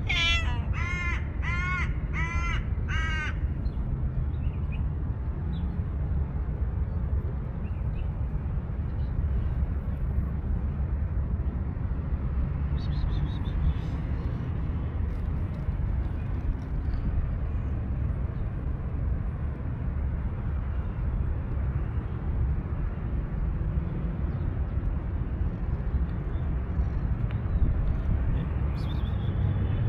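A crow cawing five times in quick, even succession, then a steady low rumble in the background.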